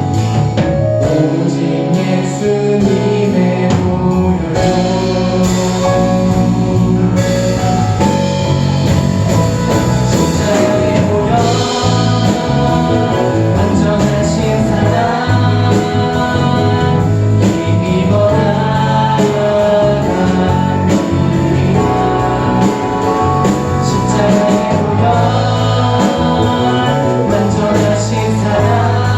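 Praise band playing a Korean worship song live, with guitar and singing.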